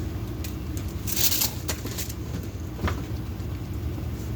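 Steady low rumble of background noise, with several short clicks and rustles, the loudest about a second in.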